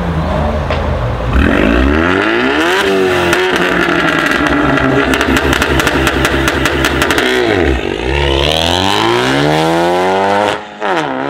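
Turbocharged 2.3-litre four-cylinder of a stage 2 tuned Ford Mustang EcoBoost, heard through its Roush exhaust. It idles, revs up and is held at high revs on launch control for about four seconds with rapid crackling pops. About eight seconds in it launches: the revs dip, climb steeply, drop at an upshift and begin climbing again near the end.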